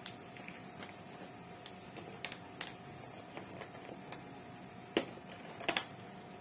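Scattered small clicks and taps over a steady faint hum, with louder clicks about five seconds in and again shortly after.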